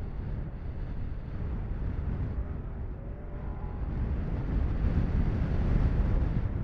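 Wind buffeting the microphone over the engine drone of off-road race vehicles, louder about five seconds in.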